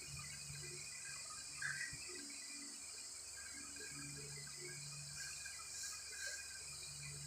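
Faint background noise: a steady hiss with a low hum that comes and goes, and a brief faint sound about two seconds in.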